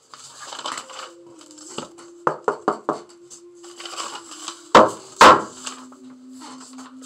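Rustling and scraping of paper and sand across a sand-painting board, a quick run of four light taps, then two loud knocks of the board against the wooden tabletop.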